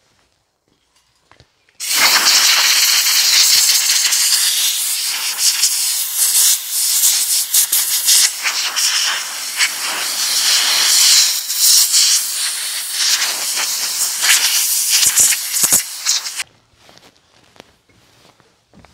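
Compressed-air blow gun blasting a jet of air over a plastic air-filter cover to blow the dust off it: a loud hiss that starts about two seconds in, swells and dips as the nozzle moves, and cuts off sharply a couple of seconds before the end.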